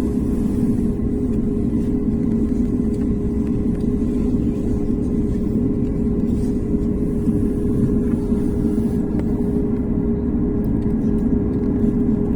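Airliner engines and cabin rumble heard from inside the passenger cabin: a steady drone with a held hum, unchanging in level.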